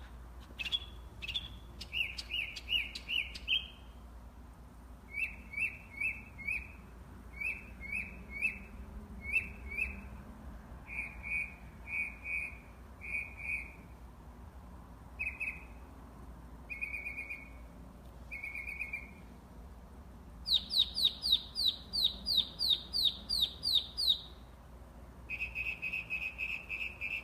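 A songbird singing from a tree: short whistled notes repeated in quick sets of three to ten, each set switching to a different note. The loudest is a run of about ten sharp, high notes about two-thirds of the way through.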